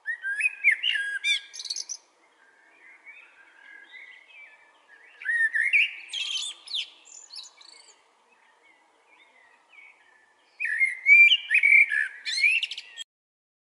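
A songbird singing in three loud bursts of quick, varied chirps and whistles, with softer twittering between them; the song stops abruptly near the end.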